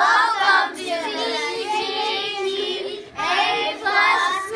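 A group of children singing out together in unison, in two drawn-out phrases with a brief break about three seconds in.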